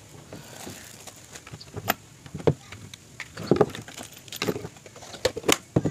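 Hands unpacking a hard plastic tool case: plastic bags rustle, with irregular clicks and knocks as the packed parts are lifted out and handled.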